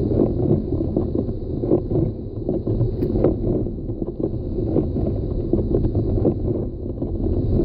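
Inside a car driving over a snow- and slush-covered highway: a steady low road and engine rumble, with frequent irregular knocks and swishes from the tyres running over packed snow and ruts.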